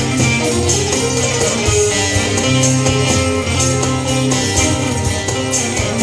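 Bağlama (long-necked Turkish saz) playing an instrumental passage with no singing, over sustained bass notes and a steady percussion beat.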